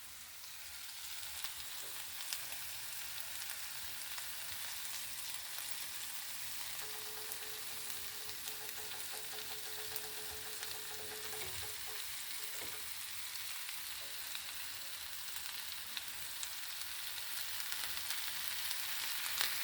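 Pot of ground-turkey chili sizzling on the stove: a steady, fine crackling hiss. A faint steady tone sounds for a few seconds midway.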